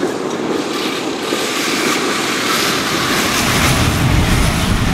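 MAN rally truck's diesel engine running hard as the truck drives across sand, with a rushing tyre and dust noise. The deep engine sound grows louder near the end as the truck passes close by.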